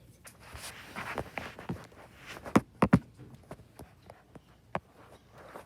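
Scuffling footsteps and handling noise as players move about in a Nerf dart battle, with two sharp, loud knocks close together about two and a half seconds in and a few lighter clicks.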